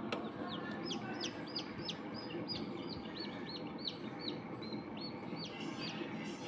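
Newly hatched chick peeping in the incubator: a quick run of short, high, falling peeps, about three a second, over a steady low hum.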